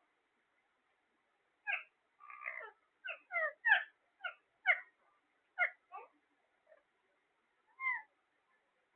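A parrot giving a string of about ten short pitched calls, some sliding up or down, in quick bunches after a silent first second and a half.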